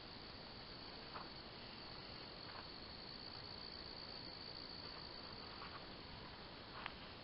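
Crickets trilling in a steady, high, even chorus, with a few faint clicks and knocks, the sharpest near the end.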